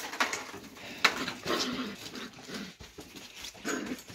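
Shetland sheepdog puppies playing, with short yips and growls mixed with scuffling, and a couple of sharp knocks near the start and about a second in.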